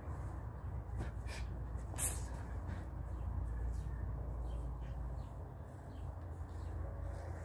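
Outdoor yard ambience: a steady low hum with a few faint, brief rustles.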